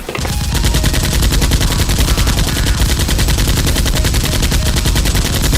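Sustained automatic gunfire, a rapid even rattle of shots that stops suddenly near the end.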